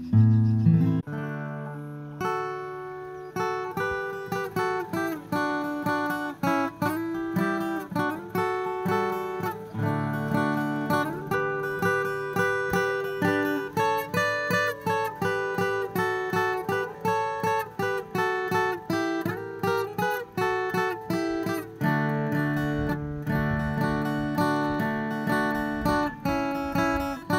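Background music on acoustic guitar: plucked notes and strummed chords in a steady rhythm.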